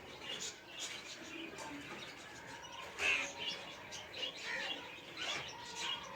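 Green parrot calling: a run of short chirps and squawks, the loudest about three seconds in.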